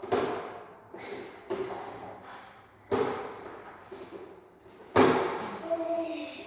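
About five sharp bangs or knocks at uneven intervals, each dying away with echo, the loudest about five seconds in; a short steady tone sounds just before the end.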